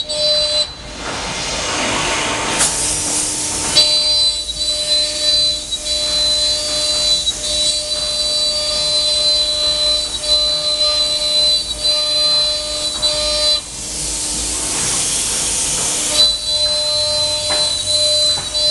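C.R. Onsrud CNC router spindle running with a steady high whine while the router bit cuts sheet stock, broken twice by long rushes of hiss, about a second in and again near fourteen seconds.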